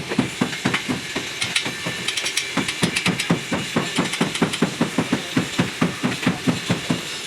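Hammer striking metal, an even run of blows at about four to five a second.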